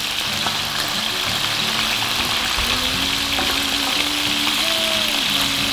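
Chicken wings sizzling in hot olive oil in a frying pan, a steady hiss. Soft background music with held notes comes in about halfway through.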